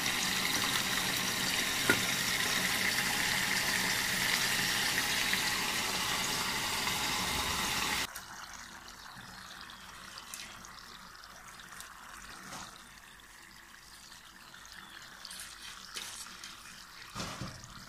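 A steady rushing hiss that cuts off sharply about eight seconds in, leaving a much quieter background with a few faint clicks.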